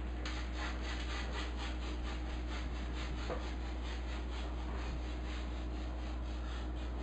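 Rapid rubbing strokes, about three or four a second, as a baking dish is greased with butter so the fruit crisp won't stick.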